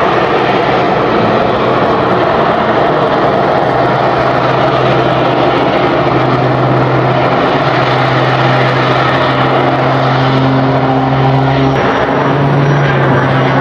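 Aircraft engine droning steadily over a loud rush of noise, its low hum stepping up slightly in pitch near the end.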